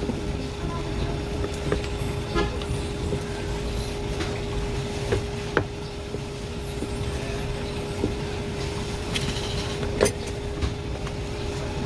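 A steady low machine hum with a constant tone, with scattered light clicks and knocks, one sharper knock about ten seconds in.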